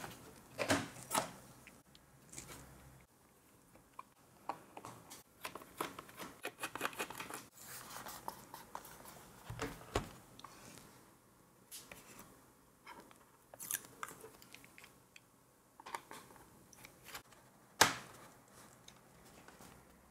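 Scattered clicks, scrapes and rattles of hard plastic as a Lenovo ThinkPad A485 laptop is taken apart by hand: its removable battery is slid out at the start, then the snap-in bottom cover is worked loose with a plastic pry tool. The loudest snap comes near the end.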